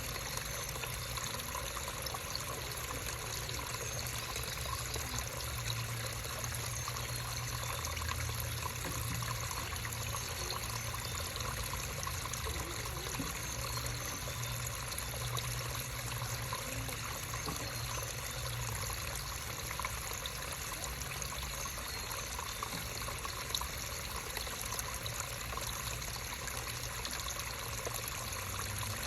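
Creek water trickling in a steady, unbroken flow, with a low rumble underneath.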